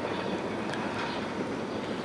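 Steady outdoor street traffic noise, an even rumble and hiss with a few faint ticks.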